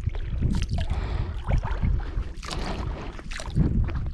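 Shallow creek water sloshing and splashing irregularly as someone wades through it, over a low rumble of wind on the microphone.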